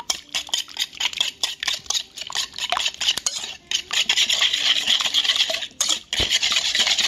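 Whisk beating a runny egg-and-buttermilk mixture in a stainless steel bowl, clicking against the metal several times a second, then turning to a faster, steadier scrape about four seconds in, with a brief pause just before the end.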